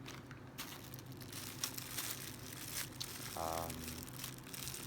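Packaging crinkling and rustling with scattered light clicks as small parts are handled and unpacked.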